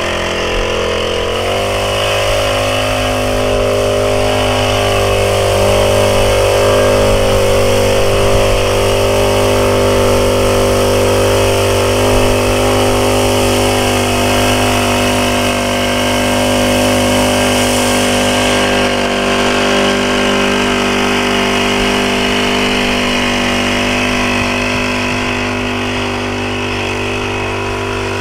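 Small engine of a backpack power sprayer running. About a second and a half in it speeds up, then holds a steady speed while spraying mist.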